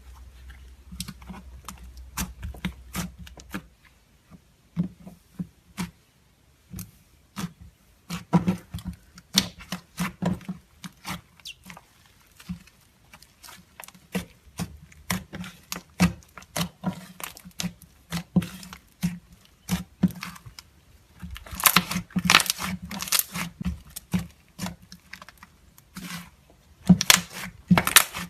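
Butter slime being squished and stretched by hand, giving irregular sticky clicks and crackles, busiest in a dense run a little past the middle and again near the end.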